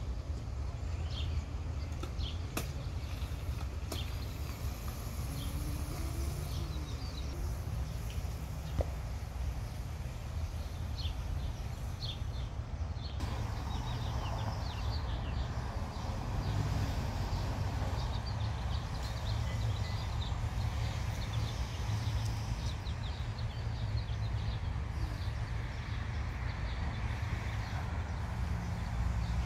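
Outdoor park ambience: a steady low rumble with scattered short bird chirps above it.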